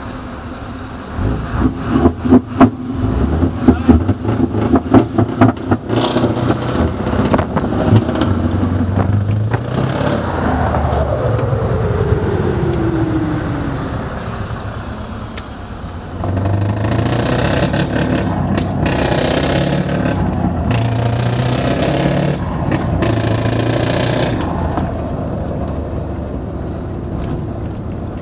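Tuned Scania V8 truck engine with a heavily modified exhaust and enlarged turbocharger, heard from inside the cab while driving. In the first seconds the exhaust crackles in rapid pulses. A falling whine follows as the revs wind down. The engine then pulls through several gears, its note climbing and dropping at each shift, with short bursts of air hiss in between.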